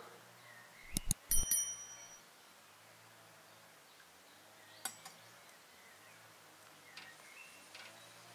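Teaware clinking: a quick cluster of sharp clinks with a short ringing tone about a second in, and one more clink near five seconds, as a china teapot, tea glass and saucer are handled. Birds chirp faintly.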